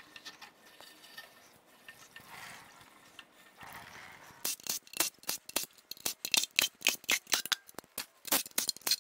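Faint handling at first, then from about four and a half seconds in a quick run of sharp metallic clicks from a cordless ratchet breaking loose the oil-pan bolts of a seized engine block.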